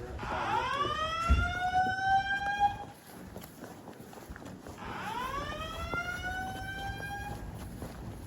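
Fire alarm speakers sounding a slow whoop evacuation tone: a rising sweep of about two and a half seconds, heard twice. A low thump about a second in.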